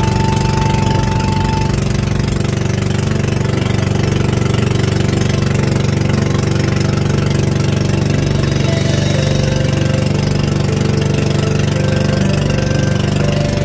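Engine of a bangka, a Filipino outrigger motorboat, running steadily while the boat is underway, with a fast, even beat.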